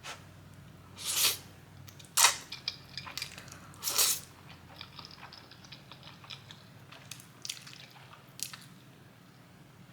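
A person eating close to the microphone. There are three loud, wet mouth sounds at about one, two and four seconds in, then quieter chewing and lip smacks.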